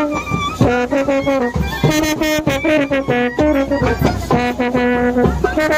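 Indian wedding brass band playing a melody over a steady drum beat, with held notes that step from pitch to pitch.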